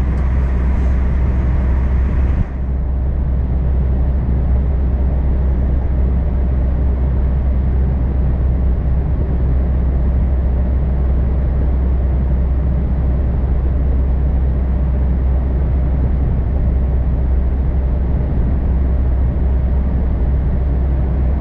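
Steady low rumble of a heavy truck, with no words over it. About two and a half seconds in, the high hiss drops out and the level dips briefly, then the same even rumble carries on.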